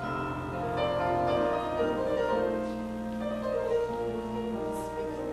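Piano music with held notes ringing over one another, accompanying a praise dance.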